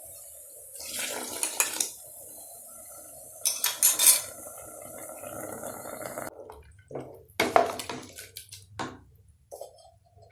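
Water poured into a pressure cooker and stirred into the kurma masala, a metal spoon scraping and clinking against the pot. The pouring stops about six seconds in, and a few separate clinks follow.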